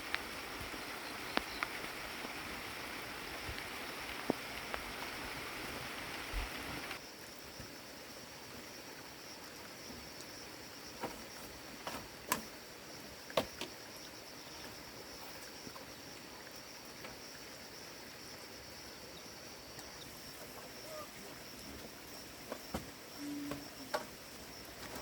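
Steady rushing, water-like hiss that cuts off abruptly about seven seconds in. After it comes quieter outdoor ambience with a continuous high-pitched insect drone and a few scattered sharp knocks.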